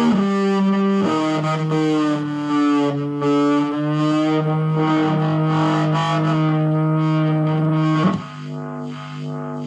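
Electric guitar through fuzz and Uni-Vibe pedals into a Marshall Origin 5C combo amp, playing long, distorted, sustained notes that waver with the vibe's modulation. About eight seconds in, the level drops and a single held note rings on with a slow, repeating swirling sweep.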